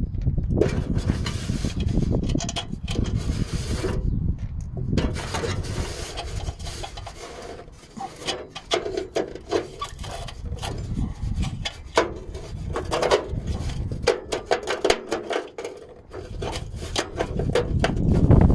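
Rusty exhaust bracket nut being worked off its threaded stud by hand: a run of gritty scraping and rubbing of metal and rust, with some short squeaks partway through.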